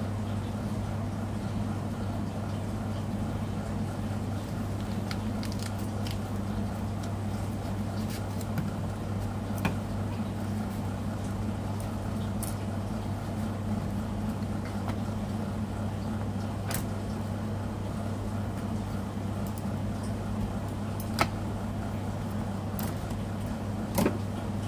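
Steady low machine hum, with a few sharp taps scattered through it.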